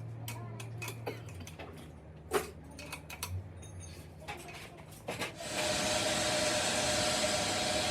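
Scattered light clicks and knocks of workshop handling, then a steady hiss starts about five and a half seconds in and keeps going.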